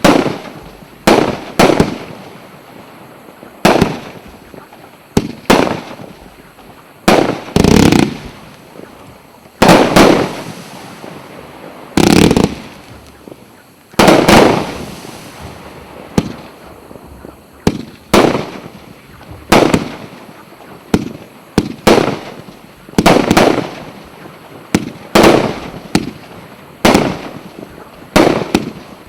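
A 250-shot, 1.2-inch firework cake firing: sharp bangs about once a second or so, each fading out quickly, with a few louder, longer bursts about a third of the way in.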